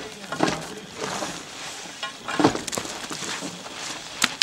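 A long-handled ice bar striking and scraping ice and snow on top of a submarine's sail, chipping it clear: a few sharp knocks at irregular intervals over a rough crunching and scraping.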